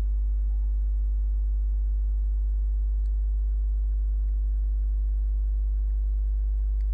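Steady low electrical hum with a few fainter overtones, and no music. Two faint clicks, one about three seconds in and one near the end.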